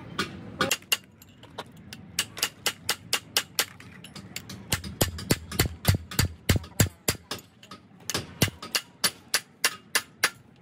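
Hammer tapping on metal gearbox parts, about three sharp strikes a second in a long steady run with a short pause near the end, as when driving parts home during gearbox reassembly.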